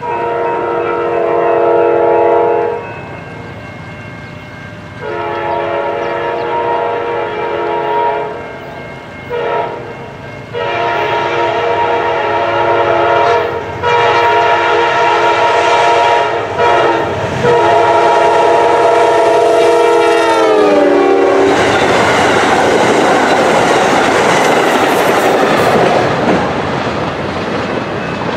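Amtrak diesel locomotive's multi-chime air horn blowing the grade-crossing signal: long, long, short, long, the last blast dropping in pitch as the locomotive passes. Then the loud rush and wheel clatter of the passenger train going by.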